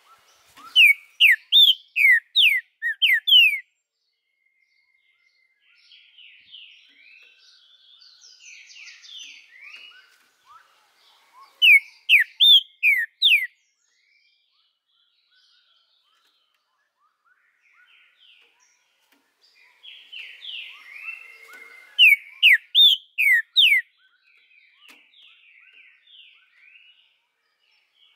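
Green-winged saltator (trinca-ferro) singing: three loud phrases, each a quick string of falling whistled notes, about ten seconds apart, with softer twittering between them.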